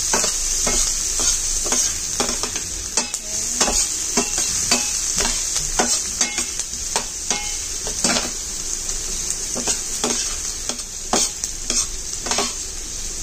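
Diced onion sizzling in hot oil in a frying pan, stirred with a utensil that scrapes and clicks irregularly against the pan, while the onion cooks until translucent.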